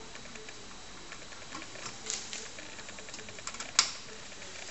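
Light clicks and rustling of hands working a 40-pin connector into an IC socket on a circuit board, with a sleeve brushing close by, and one sharp click near the end.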